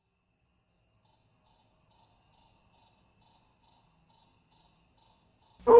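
A cricket chirping: one high-pitched note pulsing a little more than twice a second, getting louder about a second in. Music comes in loudly near the end.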